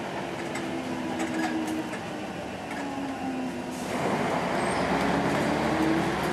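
On board a Volvo B10M single-decker bus: its mid-mounted six-cylinder diesel engine running under light load, its note stepping and gliding in pitch, then pulling harder and louder about four seconds in, with small rattles from the bodywork and windows.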